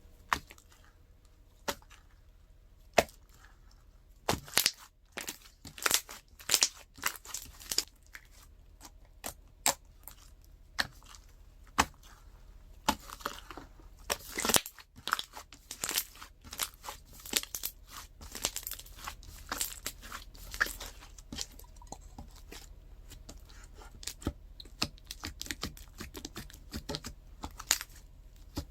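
Slime being squeezed, pressed and stretched by hand, giving irregular sharp crackling clicks and pops that come thickest in the middle.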